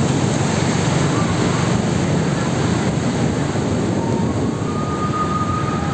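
Steady rushing noise of wind on the microphone and tyres on a rain-wet road while moving along.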